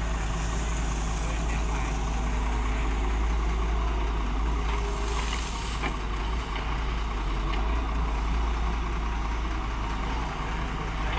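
Excavator's heavy diesel engine running steadily, with a few faint knocks.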